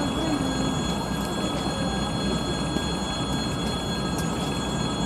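TEM7A diesel shunting locomotive running with its wagon stopped, a steady low engine rumble.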